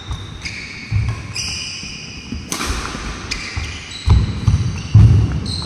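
Badminton doubles rally on a wooden court: a few sharp racket strikes on a nylon shuttlecock, short squeaks of shoes on the wooden floor, and heavy footfalls as a player lunges, loudest about four to five seconds in.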